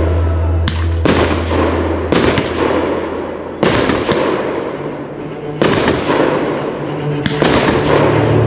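Aerial fireworks going off: about six sharp bangs a second or two apart, each followed by crackling, with music playing underneath.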